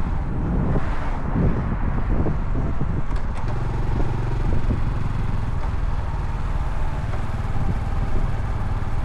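Motorcycle engine running at low road speed with wind buffeting the microphone. The gusting eases and the engine settles into a steady low hum about three and a half seconds in.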